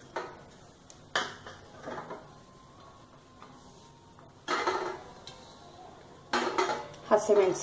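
Stainless-steel kitchenware clinking: a spoon and steel plate knocking against a steel mixer-grinder jar as grated coconut is tipped in, with about four separate clinks a second or two apart.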